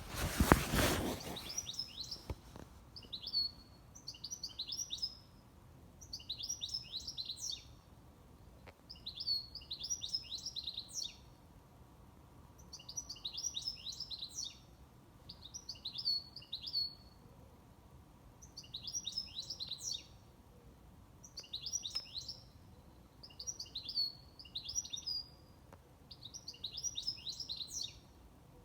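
A songbird singing the same short, high-pitched phrase over and over, about one phrase every two seconds, each a quick run of chirping notes. A short burst of noise, the loudest sound here, comes at the very start.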